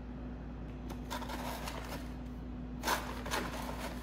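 Large plastic pouch crinkling and rustling as it is handled and opened, starting about a second in, with a sharper crackle near the end, over a steady low hum.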